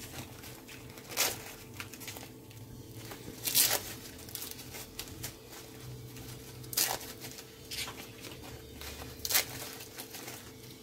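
Dry papery husks being torn off tomatillos by hand, crackling and rustling in about five short bursts a second or two apart, over a low steady hum.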